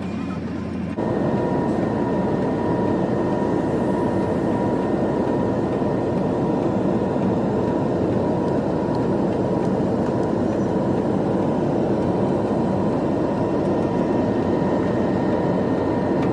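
Airliner cabin in flight beside the turbofan engine: steady jet engine and rushing air noise with a faint steady whine. About a second in, a quieter cabin hum gives way to this louder noise.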